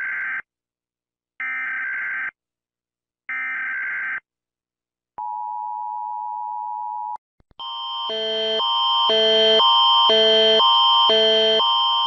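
US Emergency Alert System alert: three one-second bursts of warbling data header tones a second apart, then the steady two-tone attention signal held for about two seconds. About eight seconds in, the Canadian Alert Ready alarm starts, alternating between two chime-like chords about twice a second and growing louder over its first two seconds.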